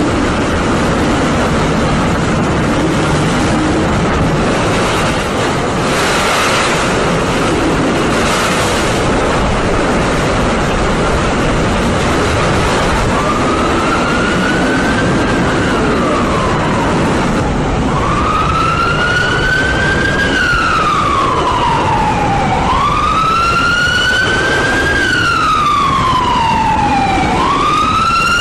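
A loud, steady rushing noise, and from about halfway an emergency vehicle's wailing siren that rises and falls slowly in pitch, several times over.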